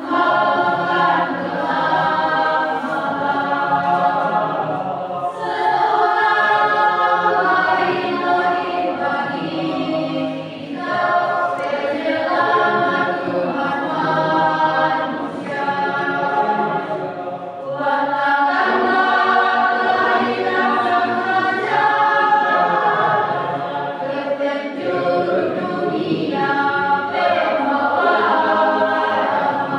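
A congregational choir singing a cappella in several parts, in continuous phrases with short breaths between them.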